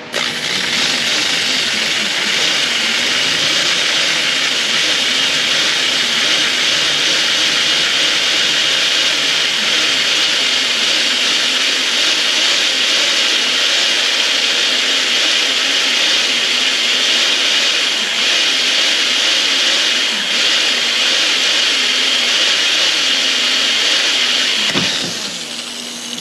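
Electric drill running steadily under load, its bit boring through a small factory head-unit mounting bolt that would not unscrew. It starts abruptly, keeps a high whine throughout with the motor's pitch wavering as the bit bites, and eases off near the end.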